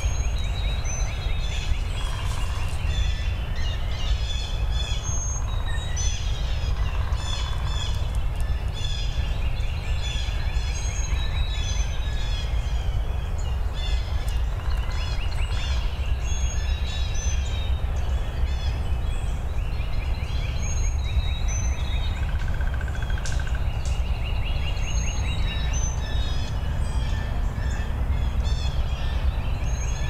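Several birds singing and calling in woodland: many short high chirps, with a fast trill of repeated notes coming back every few seconds. Underneath runs a steady low rumble.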